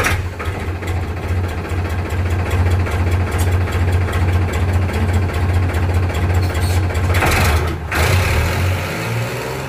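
Powertrac ALT 4000 tractor's three-cylinder diesel engine running through a freshly fitted 60-55 silencer, a steady low throb. It revs briefly about seven seconds in and quietens near the end.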